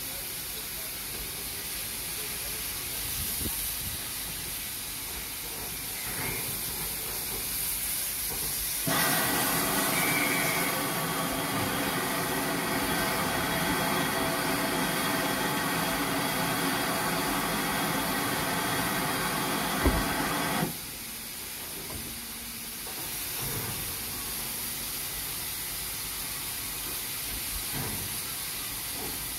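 Steam hissing steadily from a standing GWR 2800-class 2-8-0 steam locomotive. About nine seconds in, a louder rush of steam with a held, organ-like tone starts abruptly, holds for about twelve seconds, then cuts off suddenly.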